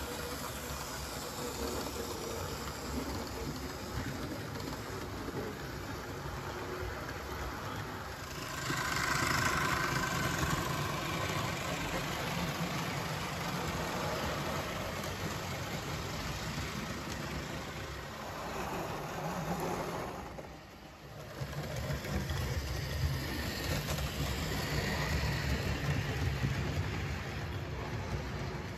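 00 gauge model trains running on the layout: a steady rumble of small electric motors and metal wheels on the rails. It grows louder as a train passes close about nine seconds in, and drops off briefly about twenty seconds in.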